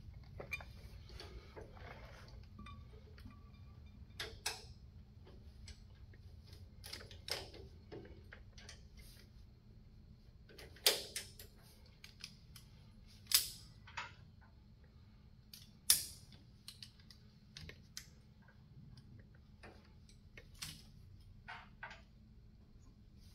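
Scattered metallic clicks and clinks of hand tools and metal parts being handled, with three sharper knocks in the middle stretch.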